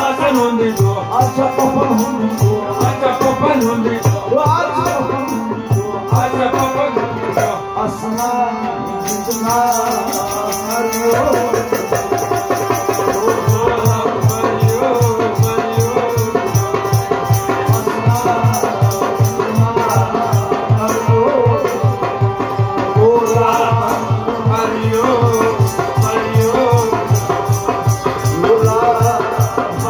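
Music for a Kashmiri bacha nagma dance: hand percussion keeps a fast, even beat under a wavering melody line. The beat grows fuller about a third of the way in.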